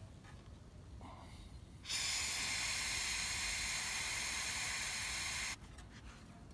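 Gas tank of a live steam model locomotive being vented through its Ronson filler valve: a steady hiss of escaping gas that starts suddenly about two seconds in and cuts off sharply after about three and a half seconds.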